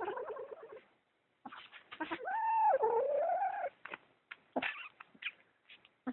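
Kitten giving a possessive guarding growl over a sock: a low, rough growl in the first second, then one long, wavering yowl of about two seconds, with a few short clicks around it.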